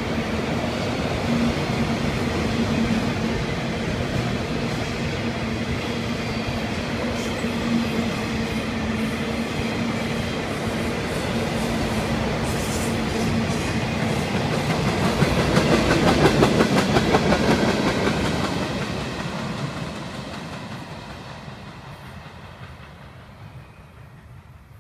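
Freight train of autorack and tank cars rolling past, steel wheels clicking over the rail joints in a quick rhythm. The clicking is loudest about two-thirds of the way through, then the sound fades away as the end of the train passes.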